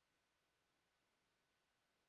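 Near silence: a digital gap in the music.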